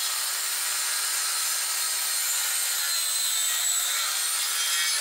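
Okatz Premium CS7V corded circular saw with a 7-inch blade running through a cut in a wooden board. A steady high-pitched whine sits over the hiss of the blade cutting wood.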